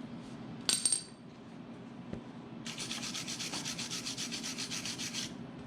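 A sharp metallic clink with a short ring, then a quick run of rasping metal-on-metal scraping strokes, about eight a second, lasting a couple of seconds.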